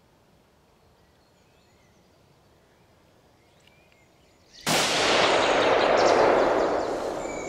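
Near silence, then about four and a half seconds in a single hunting-rifle shot that starts suddenly and rolls on as a long echo, fading slowly over the next few seconds.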